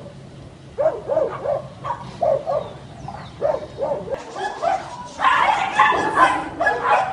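A dog barking in quick runs of short barks, getting louder and more continuous about five seconds in.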